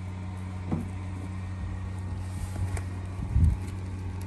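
Steady low hum of an idling vehicle engine, with a couple of small clicks as the plastic grille is worked loose at its clips and a low thump about three and a half seconds in.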